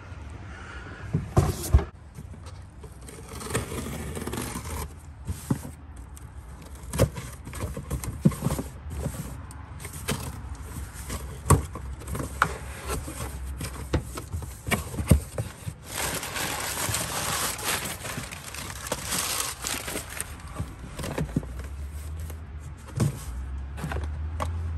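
Cardboard shipping box being handled and opened by hand: packing tape peeled and torn off, cardboard flaps pulled open and rustling, with scattered knocks and scrapes of the box.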